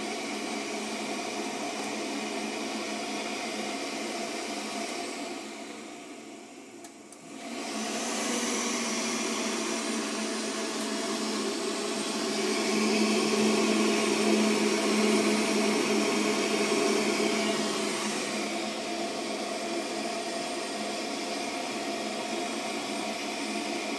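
Heatline gas boiler's fan running steadily; it dies away about six seconds in, starts again a second or so later, and runs louder for several seconds in the middle.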